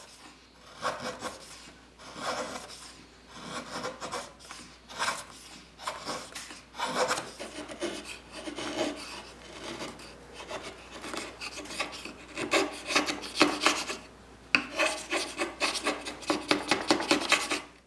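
Bench chisel paring curly soft maple by hand, a series of scraping strokes shaving thin curls as the edges of the blade are tapered and thinned. A quicker run of short strokes comes near the end.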